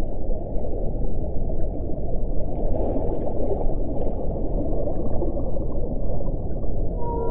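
Underwater recording noise: a dense, bubbling, gurgling rumble of water with no clear whale call standing out.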